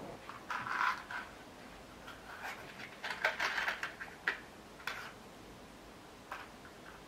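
Irregular small clicks and rustles, bunched together for the first few seconds, then a couple of single clicks near the end.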